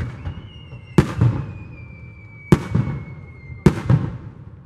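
Aerial firework shells bursting overhead: three sharp booms, about a second in, about two and a half seconds in, and shortly before the end. Each is followed by a low rolling echo.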